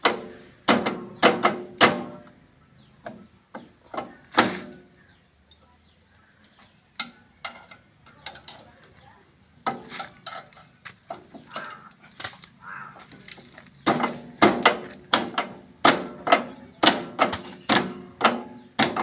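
Irregular metallic clanks and knocks from hand tools and steel brake parts being worked at a tractor's rear brake housing during a brake lining change, some ringing briefly. The knocks are sparse in the middle and come quickly, two or three a second, over the last few seconds.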